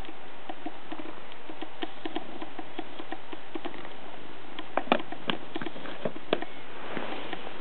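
A cat licking and chewing dried catnip off a carpet: a run of small, quick, irregular mouth clicks, with a few louder ones about five and six seconds in.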